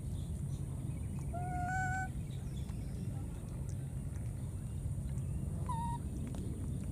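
Baby monkey giving two short, high coo calls: the first about a second and a half in, stepping slightly up in pitch, the second shorter and higher a little before the end. A steady low background rumble runs underneath.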